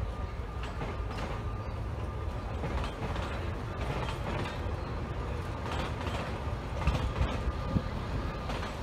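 Vintage Sóller electric tram and its wooden trailer cars rumbling past on steel rails, with a few sharp clacks about seven seconds in.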